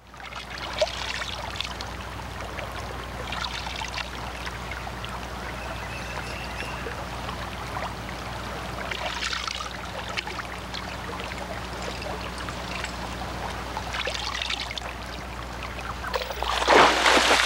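Water splashing and trickling as hands scoop and move through shallow water, with a few short louder splashes and heavier sloshing near the end, over a low steady hum.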